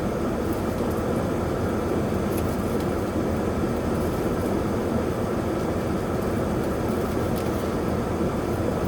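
A steady low rumble, of the kind a running vehicle makes, with no speech over it.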